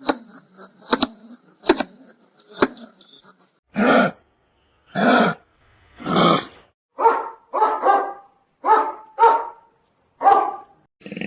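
Dog barking: about nine single barks, spaced a second or more apart at first and coming faster near the end. Sharp clicks and a high hiss come first.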